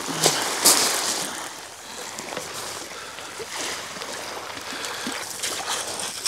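Small waves washing and splashing at the edge of a shingle beach, with a few sharp crunches or splashes in the first second.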